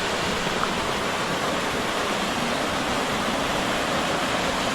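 Waterfall's steady rush of falling water pouring into a pool, an even, unbroken roar at a constant level.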